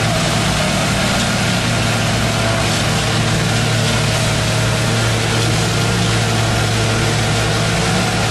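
Engines running steadily, a constant low hum under a broad hiss: the air-cooled gasoline engines of an Allen 4836B bridge deck finisher working beside a concrete mixer truck.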